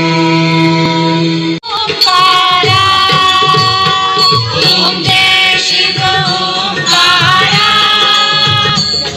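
Indian devotional music. A held chanted note with its overtones breaks off suddenly about a second and a half in, and a sung devotional song with percussion follows.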